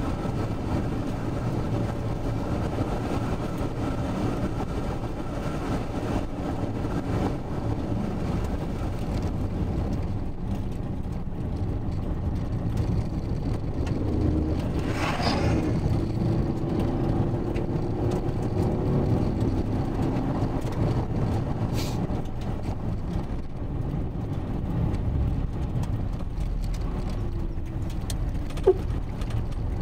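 Steady rumble of a vehicle driving along a dirt road, engine and tyre noise. About halfway through, an oncoming pickup truck passes close with a brief rush of noise, and there is a single sharp click near the end.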